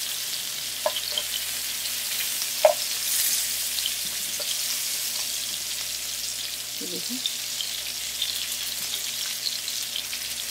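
Stuffed chicken breasts shallow-frying in butter in a nonstick skillet over medium-high heat: a steady sizzle with scattered pops. A spatula knocks and scrapes against the pan as the pieces are turned, the sharpest knock about two and a half seconds in.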